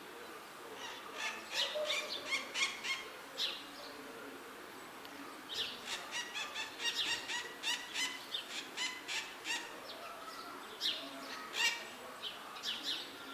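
Maritaca parrot calling in rapid runs of short, harsh, shrill screeches, in three bouts with brief pauses between them.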